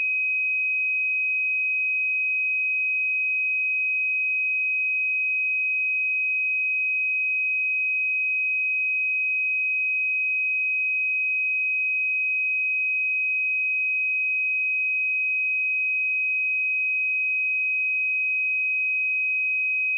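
A pure sine-wave test tone at 2526 Hz, one steady high-pitched note held at constant level without change.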